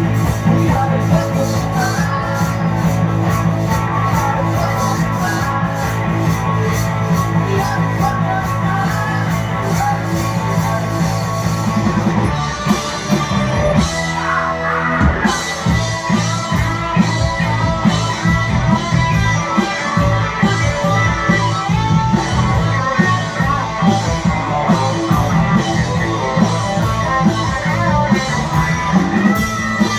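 A rock band playing live: guitars over a steady drum beat. Midway the bass drops out for a couple of seconds before the full band comes back in.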